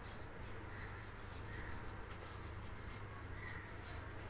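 A spoon stirring thick moong dal and rice dosa batter in a bowl, mixing in salt: a run of short, soft scraping strokes over a steady low hum.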